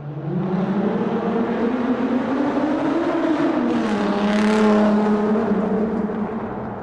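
Car engine in a tunnel, swelling in from quiet: its note rises as it accelerates, drops to a lower steady pitch about halfway through with a burst of hiss, then fades near the end.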